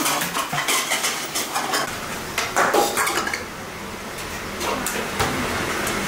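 Dishes and metal utensils clattering at a food counter: many short clinks and knocks, thickest in the first three seconds, then sparser.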